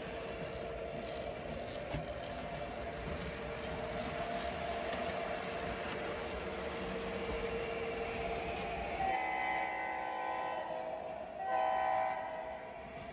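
O-gauge three-rail model freight train running past steadily, with wheels and motor humming on the track. Near the end the diesel locomotive's electronic sound system blows its horn twice, the first blast longer than the second.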